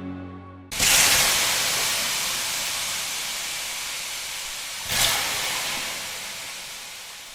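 A loud hissing rush of noise cuts in suddenly about a second in, swells again around five seconds, then slowly fades away.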